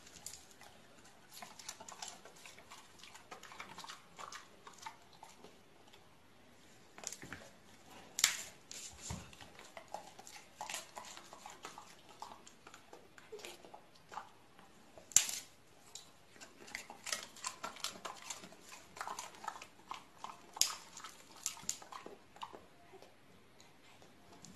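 Dogs mouthing and tussling over a plush toy: many soft, irregular clicks and scuffles, with three sharp clicks spread across the stretch.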